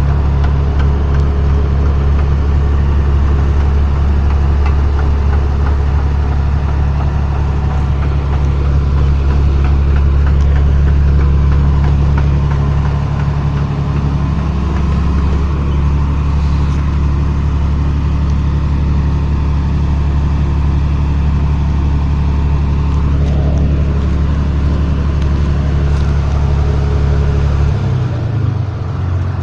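Rice combine harvester's diesel engine running loudly and steadily with a low, deep hum; its note drops lower near the end as the engine slows.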